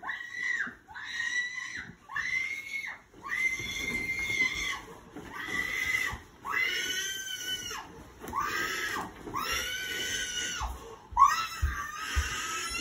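A person screaming over and over: about ten high-pitched screams in a row, each about a second long, with short gaps between.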